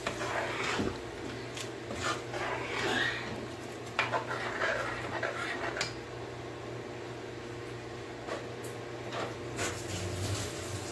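A spatula stirs rice into simmering chicken curry in a frying pan, with wet scraping and light knocks on the pan. The stirring stops about six seconds in, leaving a steady low hum and faint bubbling.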